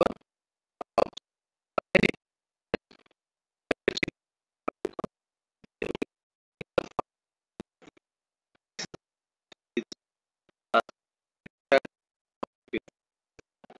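A series of short, sharp clicks and knocks, roughly one a second, with silence between them.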